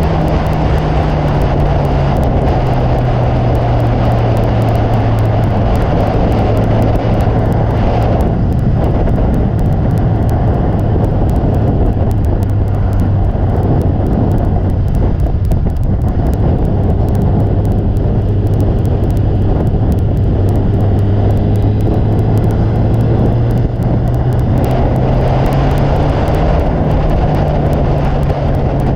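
Motorcycle engine running at a steady cruise under heavy wind and road rush. The engine note drops a little near the start, holds level, and climbs again near the end.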